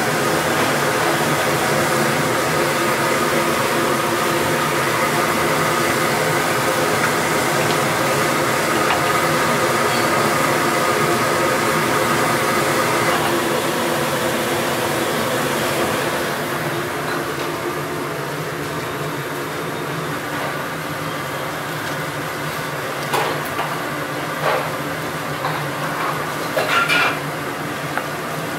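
Steady hum of kitchen machinery with several steady tones. It drops quieter about sixteen seconds in, and a few brief clatters and knocks come near the end.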